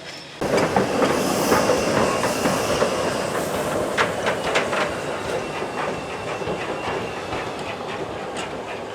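Steam-hauled train running along the line, its wheels clicking over rail joints. It cuts in suddenly about half a second in, is loudest early, then slowly fades.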